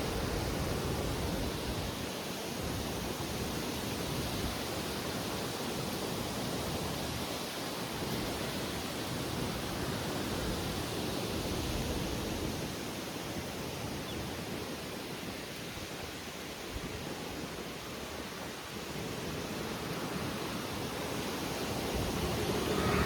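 Strong wind blowing, a steady rushing noise with an uneven, buffeting low end, swelling again near the end.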